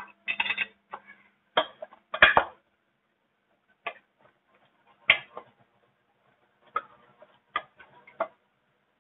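Wooden spatula knocking and scraping against a pot while stirring chicken pieces in boiling broth: irregular sharp clacks, several close together at first, then about one a second.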